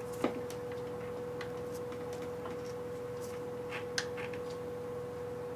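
A few light metallic clicks and taps from work on a bicycle brake cable, the loudest about a quarter second in and another about four seconds in, over a steady faint high hum.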